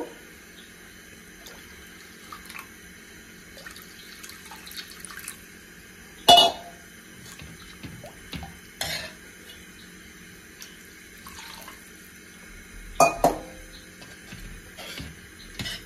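Cooking at a pot of soup: a few sharp clinks of a utensil against the pot, the loudest about six seconds in and a quick pair near the end, over faint water noise as more water is added to thin the soup.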